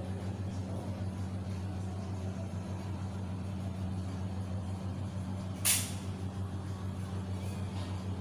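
Steady low hum, with one short sharp hiss about five and a half seconds in.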